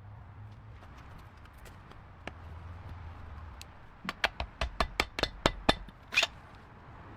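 Hand tools working on engine parts: a quick run of about eight sharp metal clicks and knocks over a low hum, then a short scraping burst.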